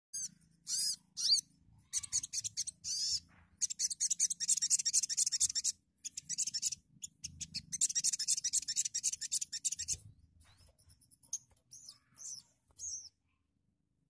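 Sogon sunbird singing: fast, high-pitched chattering trills in two long bursts, with separate sharp chirps before them and scattered calls near the end. A faint low hum lies underneath.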